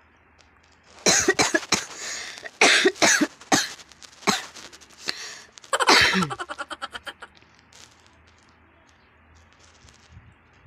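A person's loud, breathy vocal bursts without words, from about a second in to about seven seconds in, ending in a quick run of short pulses.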